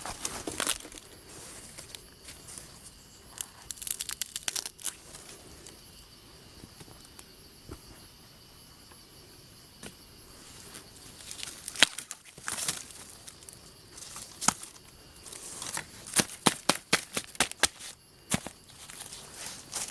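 Rustling and crackling of leaves and stalks, with scattered sharp snaps coming in clusters, from plants being handled and broken off by hand.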